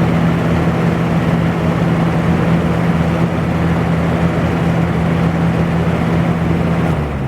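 A Lasko box fan running on high: a steady electric motor hum under the whoosh of the blades. About seven seconds in the hum cuts out and the fan starts to coast down. The motor sounds a little dry, its bearings not yet oiled.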